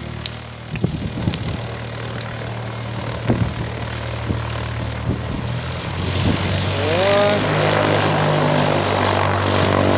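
Piston engine and propeller of a single-engine high-wing light plane taxiing at low power, a steady drone. It grows louder about six seconds in as the plane comes toward the listener.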